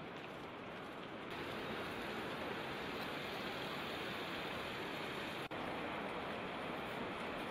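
Steady rush of falling water from Niagara's Horseshoe Falls, an even noise with no pitch to it. It gets a little louder and brighter about a second in and drops out for an instant about five and a half seconds in.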